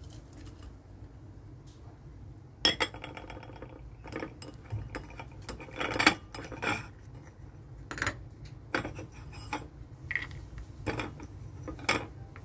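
Kitchen utensils and dishes clinking and knocking around an open rice cooker: about a dozen sharp strikes, starting nearly three seconds in, over a steady low hum.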